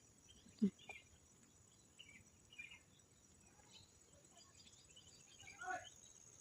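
Faint outdoor ambience of small birds chirping in short scattered calls over a steady high insect drone, with a short call falling in pitch near the end. A brief low thump about half a second in is the loudest sound.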